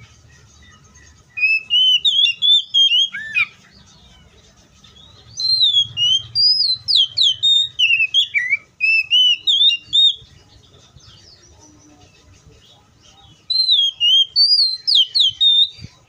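Male oriental magpie-robin singing: three bursts of varied whistled phrases, quick notes sliding up and down, with short pauses between them. The middle phrase is the longest, about five seconds.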